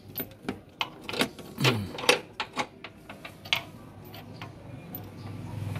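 Irregular metallic clicks and clinks of bolts and a socket wrench being handled against the engine mount bracket, some taps ringing briefly.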